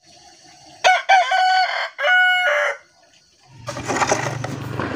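A rooster crowing once, a single cock-a-doodle-doo of about two seconds with a short break in the middle. After a brief hush, a steady low hum with a hiss over it sets in.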